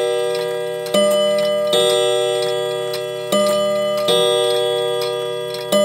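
Metron wall clock's striking train: hammers hitting the gong rods in ding-dong pairs, two full pairs and the first stroke of a third, each stroke ringing on and slowly fading. The hammers are adjusted to strike the hours.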